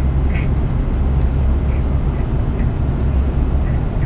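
Airliner cabin noise in flight aboard an Airbus A340-300: a steady low rumble of its four engines and airflow, with a few faint light clicks.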